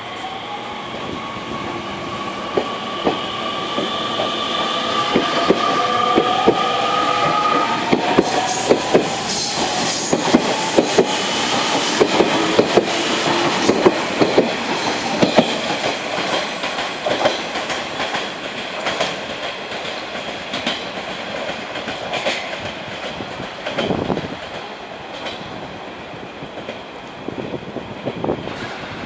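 Nishitetsu 3000 series electric train pulling away from a station. Its traction motors give a rising whine as it accelerates, and the wheels clack over rail joints as the cars pass. It is loudest midway, then fades as the train leaves.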